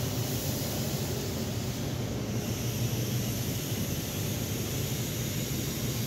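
Blue Pullman train, a repainted High Speed Train set with diesel power cars, rolling slowly into the platform as it arrives. A steady low hum with a hiss over it, and no distinct clanks.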